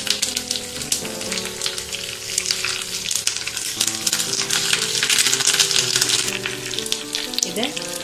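Mustard seeds and curry leaves sizzling and crackling in hot coconut oil in a small pan, a tempering being fried. The crackling is densest in the middle.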